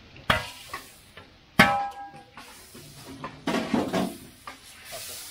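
Metal cooking utensils and a large metal pot clanking: two sharp clangs, the second ringing briefly, then a quick clatter of scraping and clinks.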